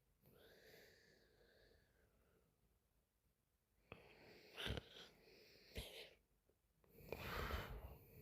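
A sleeping woman's breathing: a soft, breathy breath at the start, a few short sharp sounds in the middle, and a louder breath about a second long near the end.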